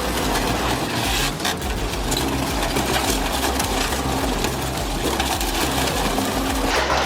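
Industrial shredder running, a dense, steady mechanical grinding and clatter with a pulsing low rumble; the sound changes abruptly near the end.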